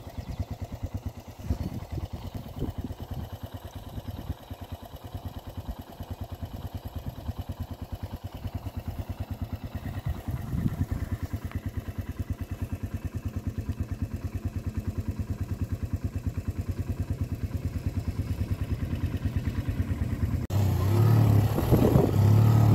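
Small motorcycle engine running while riding, a steady, fast low putter that slowly gets louder. About twenty seconds in, it turns suddenly louder and fuller.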